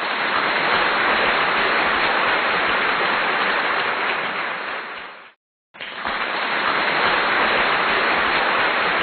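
A loud, steady, dense rushing noise with no tone to it, broken off for about half a second just after five seconds in, then starting again.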